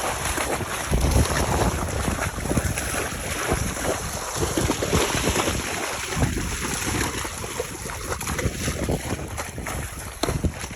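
Horses wading through pond water, with their legs splashing, and wind buffeting the microphone.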